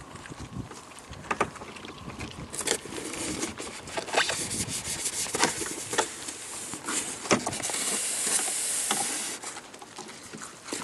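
A polystyrene foam rotor-sail section being handled close to the microphone: irregular knocks and clicks with rubbing, and a longer hissing rub about eight seconds in.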